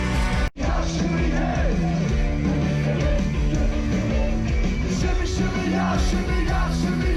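Live rock music from a band on stage, with a singer and shouted voices over loud drums and bass. The sound cuts out briefly about half a second in, then carries on.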